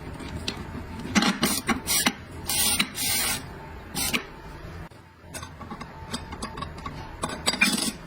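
Metal transmission parts being handled and fitted: scattered clicks and knocks, a cluster of sharper clacks about a second in and again near the end, and two short hissing bursts near the middle.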